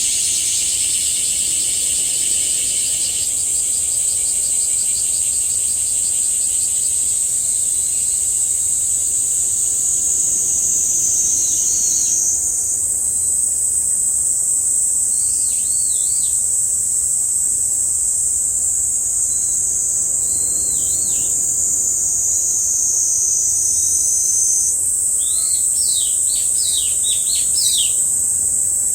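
Cicadas singing in a steady, high chorus, with a second, lower-pitched cicada stopping about three seconds in. Over it a Japanese bush warbler gives short clusters of sweeping whistled notes several times, most of them in a run near the end.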